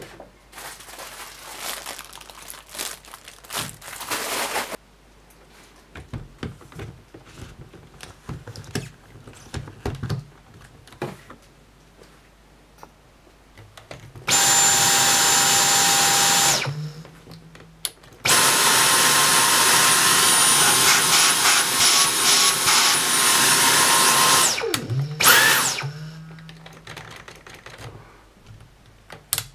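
Dyson V10 cordless vacuum's motor running in two bursts, about two seconds and then about six seconds, a steady high whine over rushing air, the second run higher in pitch. It spins down with a falling whine and then gives one more short burst. Before it, clicks and scrapes of the machine being handled.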